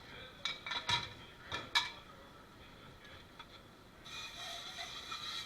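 Dishes and utensils clattering: about five sharp clinks and knocks in the first two seconds, over a steady kitchen background hum.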